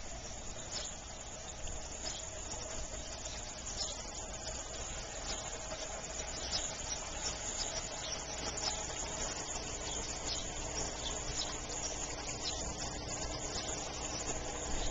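Outdoor yard ambience: a steady hiss with short high chirps scattered through it, and a faint steady hum that comes in about two-thirds of the way through.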